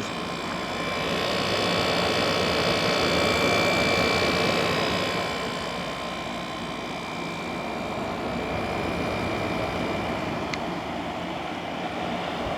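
Small General Electric window air conditioner running with its compressor on: a steady whir from the fan with faint whining tones over it, swelling louder for a few seconds and then easing back. The compressor is running smoothly.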